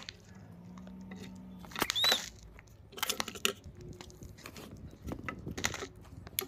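Flattened soccer balls' synthetic leather covers crinkling and crackling in scattered small crunches as they are handled.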